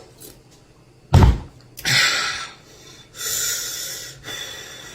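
Close-miked eating and breath sounds: a low thump about a second in, then three breathy, hissing mouth sounds.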